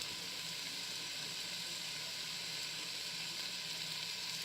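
Cubed pork sizzling steadily as it browns on the sauté setting of an Instant Pot, an even hiss.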